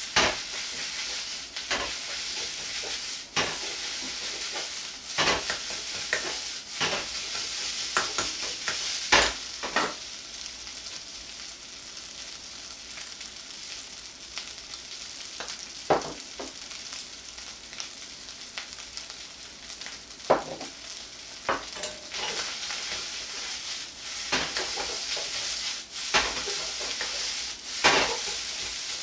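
Rice and egg frying in a wok: a steady sizzle, with a metal ladle clanking and scraping against the wok every second or two as the rice is stirred and tossed, the clatter dropping off for a few seconds in the middle.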